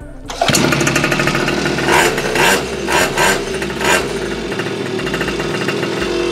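49cc pocket bike engine pull-started, catching about half a second in, then running with several quick throttle blips between about two and four seconds in. It is a start after the bike had stood unused and been hard to start.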